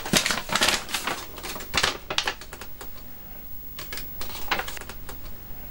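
A sheet of paper being unfolded and handled, a run of crisp rustles and crackles that come thick and fast for about two seconds and then only now and then.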